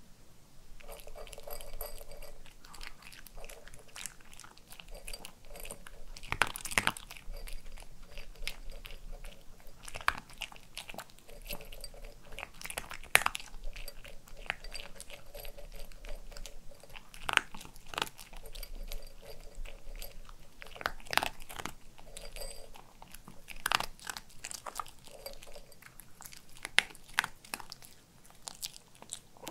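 A Pomeranian crunching and chewing dry kibble close to the microphone: many irregular, sharp crunches.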